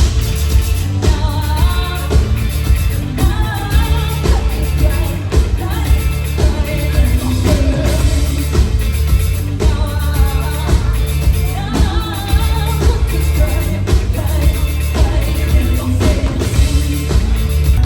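Pop-rock song with a singing voice over heavy bass and drums.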